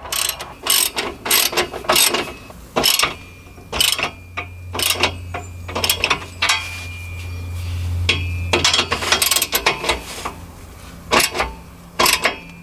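Hand socket ratchet clicking in short bursts of strokes with pauses between, as it tightens down the nuts of an exhaust clamp on a resonator delete pipe.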